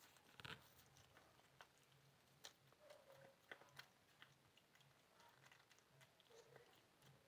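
A cat chewing and crunching thin, brittle pieces of dry food: faint, irregular crisp clicks and crunches.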